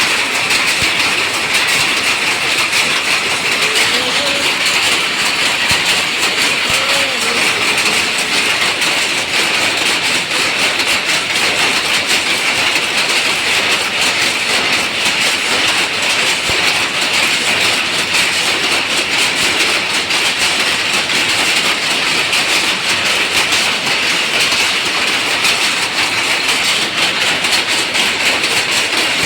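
Power loom weaving silk saree fabric, running with a fast, steady mechanical clatter.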